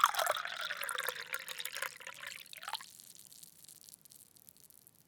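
Water poured into a glass, splashing and trickling, loudest at first and tapering off. The stream stops about three seconds in, followed by a few last drips.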